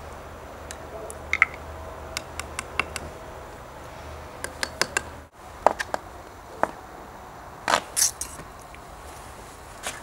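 Scattered light clicks and taps of small items being handled: a small metal lighter part on a wooden stick knocking against the rim of a glass jar, one knock ringing briefly. Later a sheet of sandpaper is handled, with a couple of short papery rustles.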